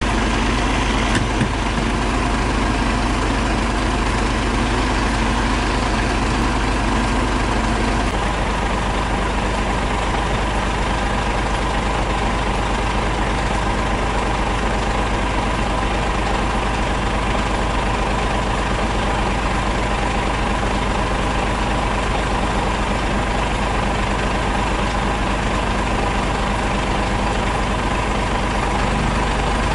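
Diesel engine of a parked fire engine idling steadily: a low drone with a steady hum on top, its low note shifting slightly about eight seconds in.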